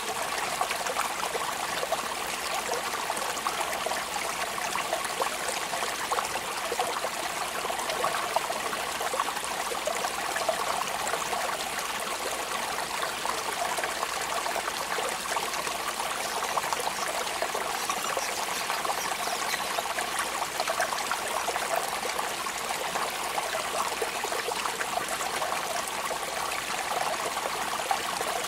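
Steady rain falling: an even hiss of many small drops that holds constant throughout.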